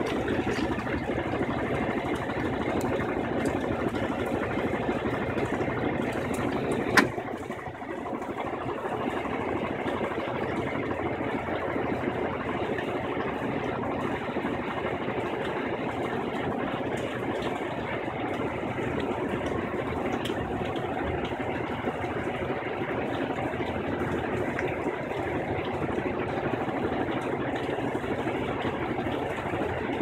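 Electrolux LDD16 top-load washing machine in its final spin, the basket whirring steadily at speed. A sharp click about seven seconds in, after which the sound is a little quieter.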